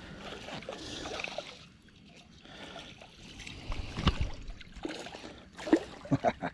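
Creek water splashing and sloshing as a small smallmouth bass is landed on a fly rod, with a few sharp splashes about four seconds in and a quick cluster near the end.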